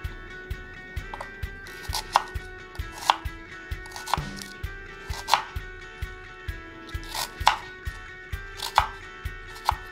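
Chef's knife slicing a peeled onion and striking a wooden cutting board, a crisp knock two or three times a second.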